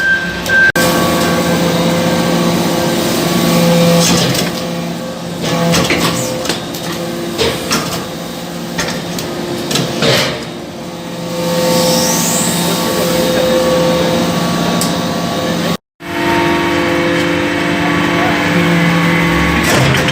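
Hydraulic briquetting press running: a steady hum from its hydraulic pump and motor, with scattered metallic knocks and clicks. The sound cuts out for a moment about three-quarters of the way through.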